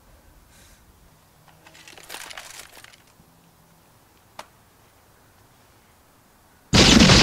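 Faint rustling, then a single sharp click. Near the end comes a sudden, very loud gunshot-like bang that carries straight on into a heavy, sustained noise.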